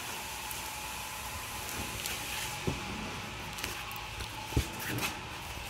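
Plastic wrap and cardboard boxes rustling and scraping as they are handled, with a couple of light knocks, over a steady hiss.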